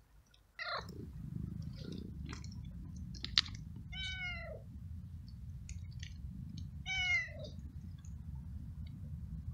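Stray cat meowing three times, about half a second, four and seven seconds in, each meow falling in pitch. A sharp click just over three seconds in, over a steady low rumble.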